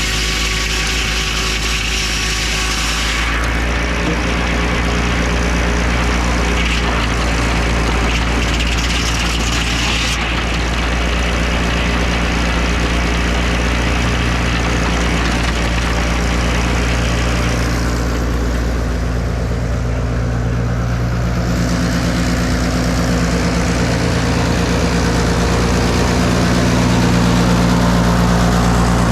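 An engine running steadily and loudly, a little louder in the last few seconds.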